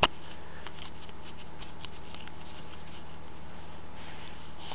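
Handling noise: a sharp knock right at the start, then faint scattered taps and rustling over a steady low hum.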